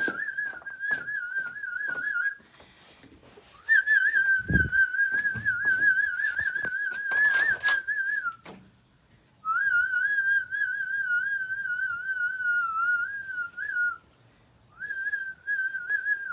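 A person whistling one long, warbling note, held at nearly the same pitch, in four stretches of a few seconds each with short breaks between. Quick clicks sound at the start and a low thump about four and a half seconds in.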